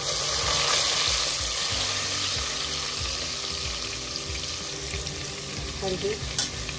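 Onion, ginger-garlic and green chilli paste masala sizzling in hot oil, a steady hiss that is loudest in the first second or so, with a single sharp click near the end.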